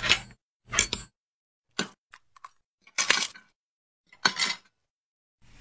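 Crunching, cracking sound effects for a knife sawing through a phone's glass back: about five short crunches with dead silence between them.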